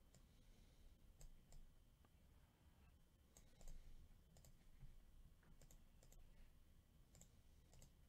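Faint, irregular clicks from a computer mouse and keyboard, scattered over near-silent room tone.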